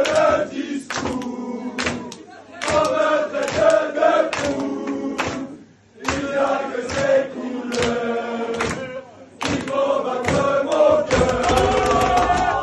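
Crowd of football supporters chanting a song together, with sharp hits in time with it. It breaks off briefly just before six seconds in.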